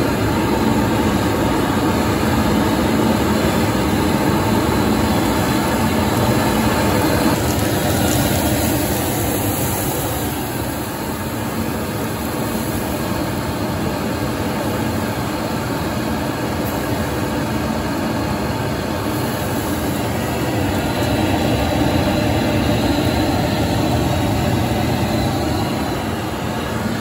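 Row of gas burners firing under metal bowls of beyran soup, a steady low rushing noise of the flames.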